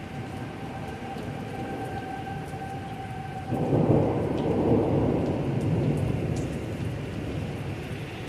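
Steady heavy rain during a thunderstorm, with a steady whistling tone behind it. About three and a half seconds in, a loud rumble of thunder breaks in and rolls on for a few seconds, slowly fading.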